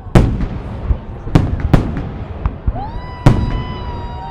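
Fireworks shells bursting in a salute display: several sharp booms, the loudest near the start and three seconds in, with smaller pops between. From about three seconds in, a whistling tone rises and then holds.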